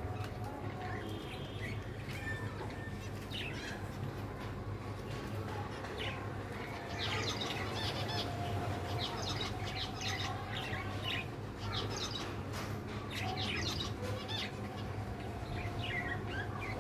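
Caged zebra finches calling with many short, high chirps and beeps, busiest through the middle of the stretch, over a steady low hum.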